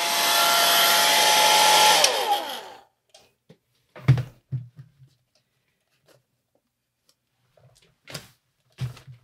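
Handheld hair dryer blowing on wet watercolor paint, switched off about two seconds in, its motor winding down with a falling pitch. After that come a few light knocks.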